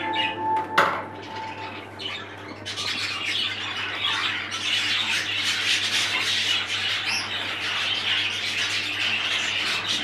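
Flock of exhibition budgerigars chattering and squawking, a dense continuous twittering of many birds that grows busier about three seconds in.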